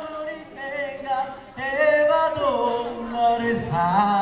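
Male voices singing a cappella through microphones, with no backing track: long held notes that slide up and down in pitch.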